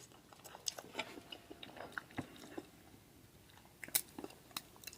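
Crab legs being eaten close to the microphone: faint chewing with small crackling clicks, a short lull in the middle, then a few sharper clicks about four seconds in.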